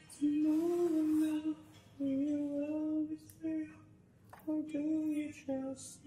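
A woman's voice humming a slow tune without words, in about five long held notes with short breaks between them.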